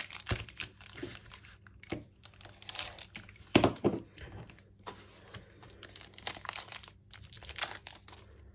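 Wrapper of a 2022 Select Footy Stars Prestige trading card pack crinkling and tearing as it is worked open by hand. It gives an irregular run of crackles, loudest about three and a half seconds in.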